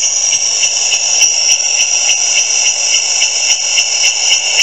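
A custom motorcycle brake-light sound-effect speaker playing a recorded cicada call: a loud, steady, high buzz that pulses about three to four times a second.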